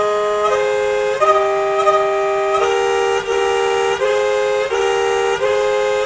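Japanese municipal disaster-prevention radio (bōsai gyōsei musen) chime: a tune of sustained electronic tones in two parts over the public loudspeakers, the notes changing about every 0.7 s.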